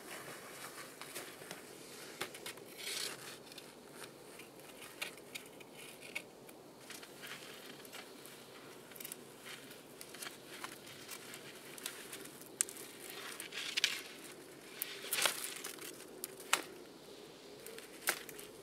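Irregular crunching, snapping and rustling from handwork in the snow: a knife cutting and snapping thin dry twigs, with footsteps in deep snow and clothing rustling. Sharp snaps stand out a few times in the second half.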